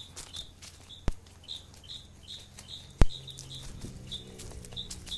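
A small bird's short, high chirp repeated steadily about twice a second, broken by two sharp knocks, about a second in and again about three seconds in, the second the loudest.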